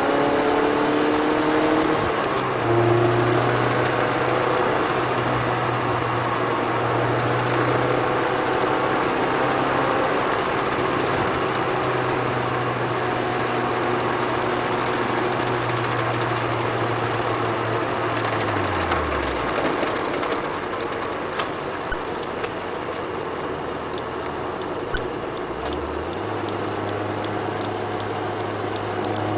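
Lotus Elise S engine and car running with a steady hum, while tyre and wind noise fill the background. The engine note falls away about two-thirds of the way through and climbs back near the end. While it is low, a few faint clicks come through, which would be the odd rattle the car has developed.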